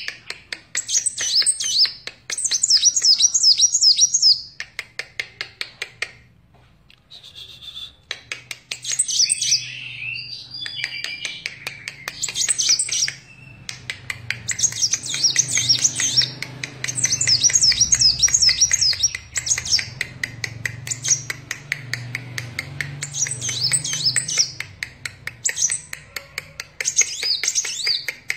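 Sunbird (kolibri wulung) in full song: fast runs of high, thin twittering notes repeated in quick series, broken by short pauses.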